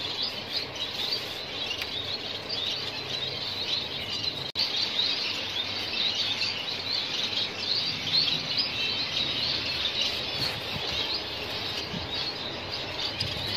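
A flock of some fifty pairs of white Bengalese finches (society finches) chirping together in a dense, continuous chatter of short, high calls.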